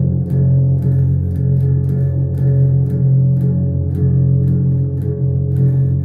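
Guitar played steadily in rhythm, about two strums a second, over sustained low notes.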